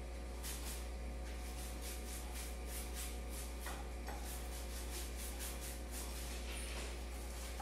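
Paint being applied to a kitchen wall over white primer, a rubbing swish repeated in quick strokes, a few a second.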